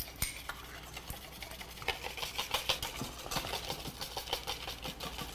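Wire whisk beating cream by hand in a chilled bowl: a fast, regular run of clicks as the wires strike the sides of the bowl.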